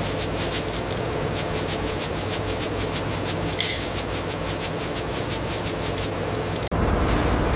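Industrial machinery running: a steady hum with a fast, even clatter on top. Near the end it cuts abruptly to a deeper, louder rumble.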